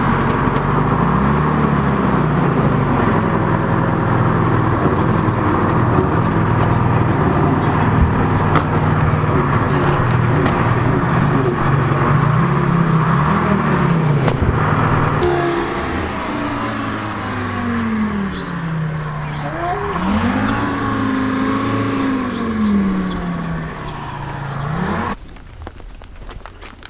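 A heavy vehicle's engine running hard, its pitch rising and falling several times as it is revved and eased off, then stopping abruptly near the end.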